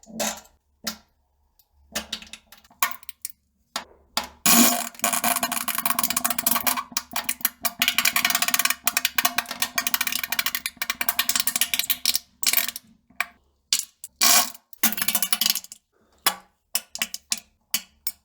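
A run of farts: a few short blasts, then one long sputtering fart with a rapid flutter lasting about eight seconds, then a string of short pops and blasts near the end.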